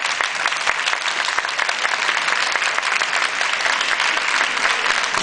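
Audience applauding steadily in a sports hall, many hands clapping at once.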